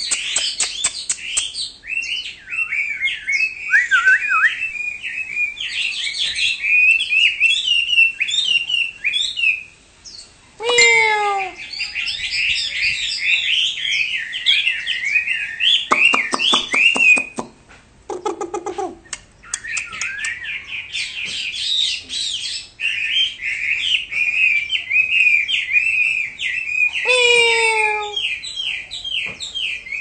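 Chinese hwamei (hoạ mi) singing loudly in long runs of fast, varied whistled phrases, with short lulls about ten and eighteen seconds in. A few low falling notes are mixed in, the kind its keeper says are its imitation of a cat's meow.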